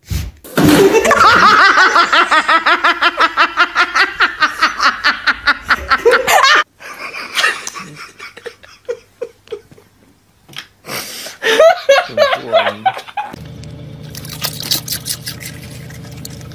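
A person laughing hard in rapid, repeated bursts, about four or five a second, for several seconds. Near the end a steady low hum takes over, inside a car.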